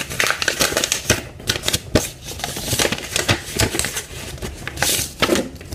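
White paper wrapping being handled and unfolded by hand, rustling and crinkling in quick, irregular bursts.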